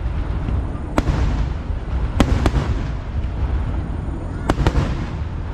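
Kerala festival fireworks bursting in the air with sharp bangs: one about a second in, a close pair a little past two seconds, and another close pair near the end, over a steady low rumble.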